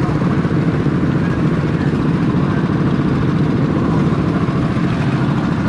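Cycle kart's small engine idling steadily, a fast even putter.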